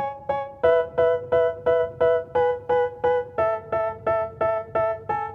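Background music: a piano-like keyboard plays evenly repeated chords, about three a second. The chord changes twice.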